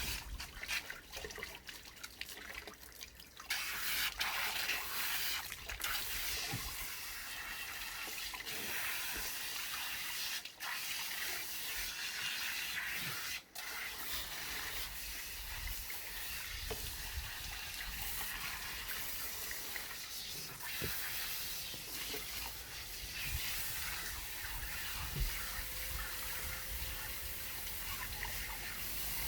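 Water running and splashing steadily as a Jindo dog is washed.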